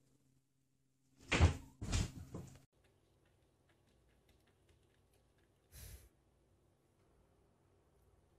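Two thumps on a wooden wardrobe about half a second apart, the second rattling on briefly, then near silence with one faint knock about six seconds in.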